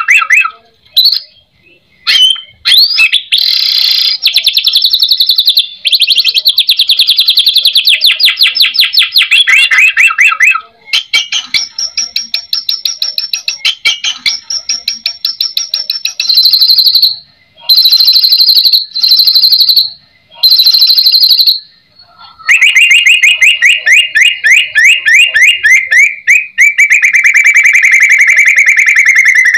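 White-rumped shama (murai batu) singing loud, rapid trills, phrase after phrase with short pauses. Between a long trill about three seconds in and another near the end come short phrases of very high, thin notes.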